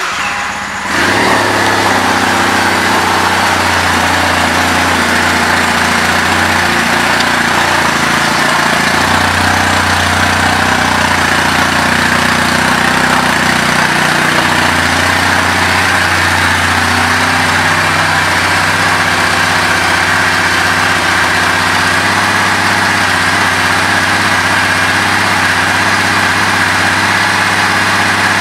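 Kawasaki W800's air-cooled parallel-twin engine catching after the electric starter about a second in, then idling steadily through its twin chrome mufflers.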